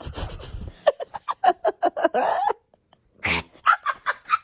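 A dog yipping: a quick run of short pitched yips, about six or seven a second, then after a brief pause a few higher yips.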